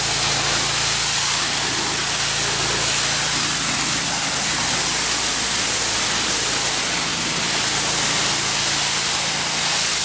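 Pressure washer jet spraying water onto wooden deck boards: a steady, dense hiss with the machine's steady hum underneath, rinsing off the foaming deck cleaner.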